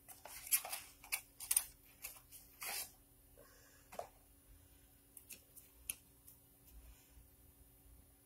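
Faint handling noises close to the microphone: a quick run of scratchy clicks and rustles over the first three seconds, then a few scattered clicks.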